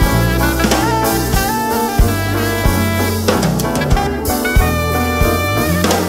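Live jazz band playing: a saxophone carries the melody over electric bass and a drum kit.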